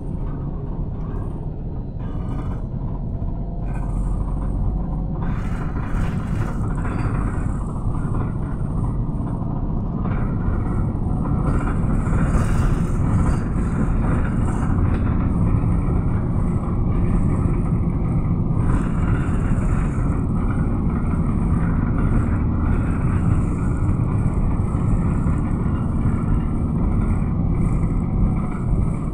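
Engine and road noise heard from inside a moving road vehicle: a steady low rumble that grows louder about four seconds in and again around ten to twelve seconds.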